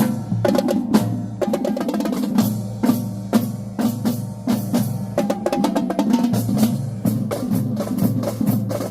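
Marching drumline playing: snare drums cracking in a fast, dense rhythm over pitched bass drums, without a break.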